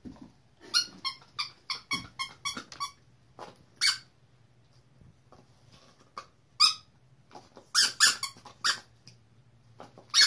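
A bare plastic toy squeaker squeaks as a dog bites and chews on it. There is a quick run of about ten squeaks in the first three seconds, then more in short groups of one to four.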